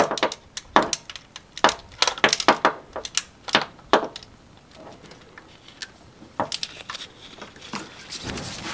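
Sharp, irregular metallic clicks and clinks of hand tools and bolts as the new water pump is bolted down on the Ford 2.0 engine. The clicks come thick for the first few seconds, then thin out to a few fainter ones, with a short rustle near the end.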